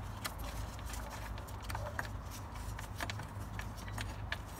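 Battery hold-down bolt and securing plate being unscrewed by a gloved hand: scattered light metallic clicks and ticks over a steady low rumble.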